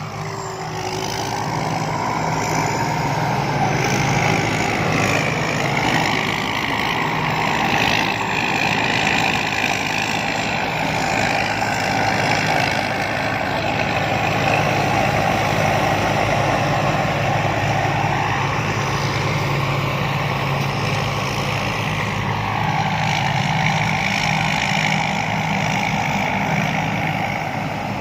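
Rice combine harvester's engine and machinery running steadily, growing louder about two seconds in.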